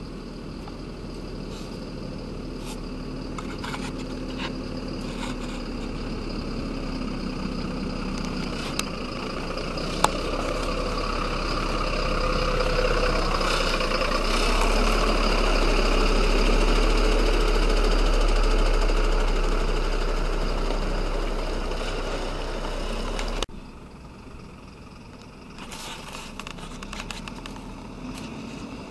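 Mercedes-Benz Zetros 6x6 truck's diesel engine running as it drives through mud, growing louder as the truck comes close, with one sharp knock about ten seconds in. Later the sound drops suddenly to a quieter engine sound.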